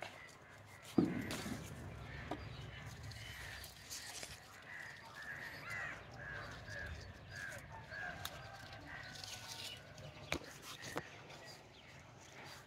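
Jujube bush branches and leaves rustling with small snaps and clicks as fruit is picked by hand, with a thump about a second in. In the middle a bird calls in a run of about eight short notes, roughly two a second.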